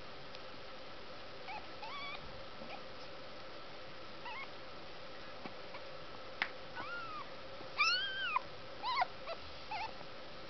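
Day-old kittens mewing: short, high-pitched squeaky calls that rise and fall. There are a few scattered early on, then louder and longer mews come in quick succession in the last few seconds.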